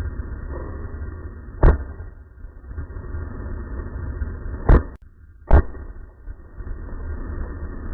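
Three gunshots, the second and third under a second apart, over a steady low rumble.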